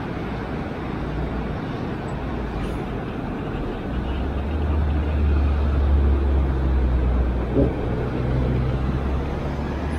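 Town road traffic, with a vehicle's low engine hum growing louder about four seconds in and staying strong.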